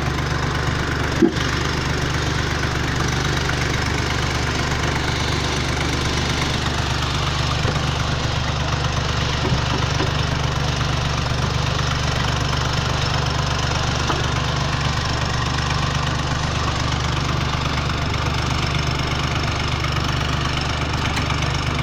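Motor of a small brick-making machine running with a steady, even drone. A single sharp knock comes about a second in.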